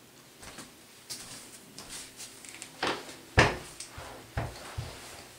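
A person sitting down and settling into a chair: rustling with a few short knocks and bumps, the loudest about three and a half seconds in.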